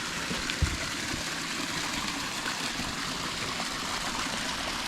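Steady hiss of a creek's running water, with a single low thump about half a second in.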